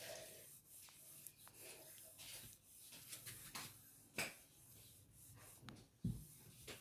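Near silence with faint, scattered rubs and light knocks from a hot metal saucepan being slid over cloth as an improvised iron.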